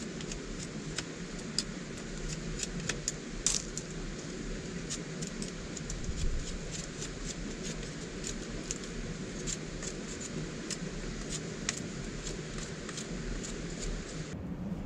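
Knife whittling a green wooden stick: irregular light clicks and scrapes of the blade biting into the wood, several a second, over a steady background hiss. The clicks stop near the end.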